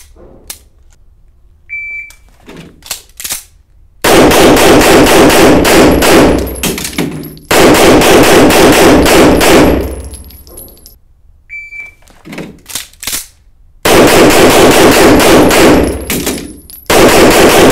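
Indoor pistol drill, run twice: each time a shot-timer beep, a few handling clicks as the pistol is loaded from the table, then two rapid strings of pistol shots about five a second, split by a short pause for a reload. The shots are very loud and echo in the indoor range.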